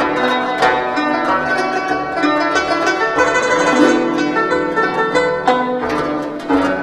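Guzheng played solo: a fast passage of plucked notes mixed with held, sustained tones.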